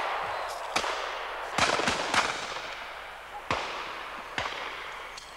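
A series of shotgun shots echoing among trees: one about a second in, three in quick succession about two seconds in, then two more spaced about a second apart.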